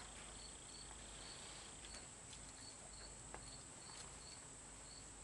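Faint insect chirping: a short high chirp repeating two to three times a second over a steady high hiss.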